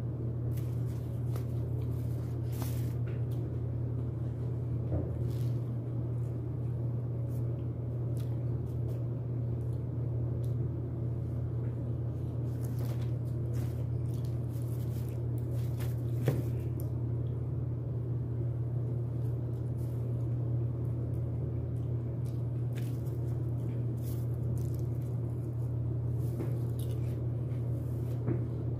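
Someone eating broasted chicken close to the microphone: scattered small crunches, wet clicks and chewing noises, over a steady low hum that runs throughout.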